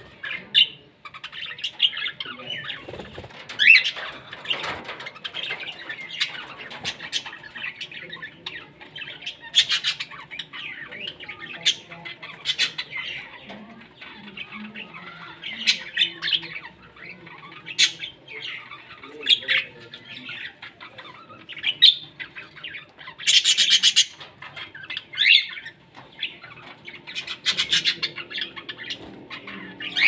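Caged budgerigars and lovebirds chirping and chattering on and off, with short sharp squawks and clicks, and a louder harsh burst about two-thirds of the way through.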